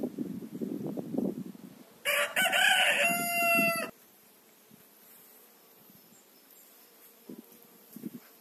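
Rooster crowing once, a cock-a-doodle-doo of about two seconds that starts about two seconds in: first rough and shrill, then ending on a held, steady-pitched note. A low rustling noise comes before it.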